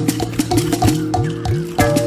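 Music with a fast, steady percussion beat over sustained tones and a bass line that slides in pitch.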